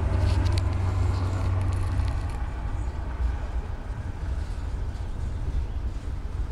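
Freight train's boxcars rolling past on the rails: a steady low rumble, with a few sharp clicks in the first two seconds.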